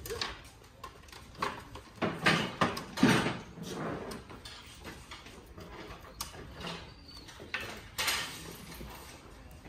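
Irregular knocks and clatter of supplies being handled and unloaded from a moving truck's cargo box, with wooden tool handles and boxes bumping. The loudest knocks come about two to three seconds in, with another around eight seconds.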